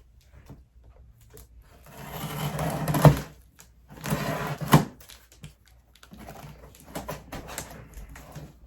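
A cardboard shipping box being handled and opened: two scraping, rasping stretches, each ending in a sharp knock, then lighter rustling and taps.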